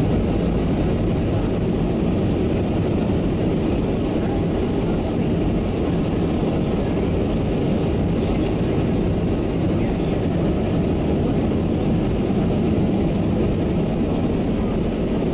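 Steady low rush of engine and airflow noise heard inside the cabin of an Airbus A320 on short final, coming down to the runway.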